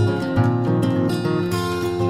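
Background music on plucked strings, with a new note or chord about every half second.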